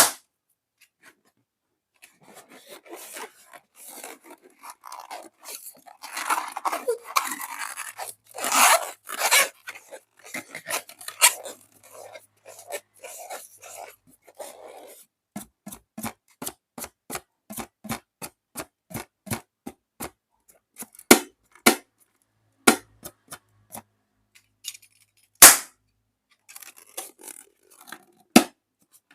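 Close-up handling of slime and balloons: crackly rustling at first, then a string of sharp clicks about two a second, and a few louder single pops in the second half.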